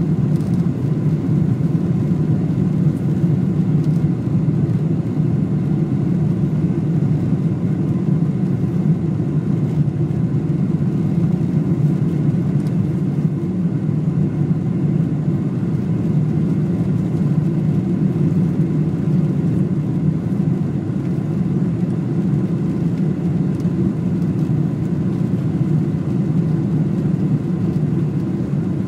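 Airliner cabin noise during the climb after takeoff: the jet engines and rushing air make a steady, unbroken low rumble inside the cabin.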